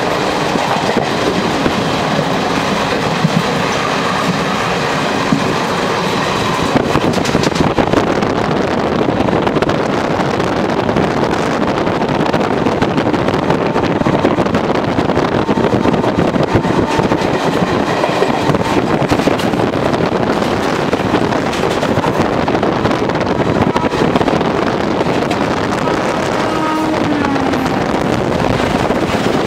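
Steady running noise of a passenger train at moderate speed, heard from a coach doorway: wheels rolling over the rails. Near the end a container freight train runs past close by on the adjacent track.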